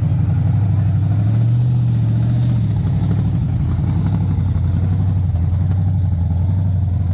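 A first-generation Chevrolet Camaro's engine idling with a deep, choppy rumble. Its pitch rises slightly for about a second, between roughly one and a half and two and a half seconds in.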